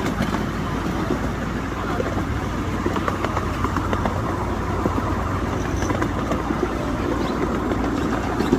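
Ride noise of a 7¼-inch gauge miniature railway train under way: a steady rumble of the riding cars' wheels rolling on the rails, with scattered clicks.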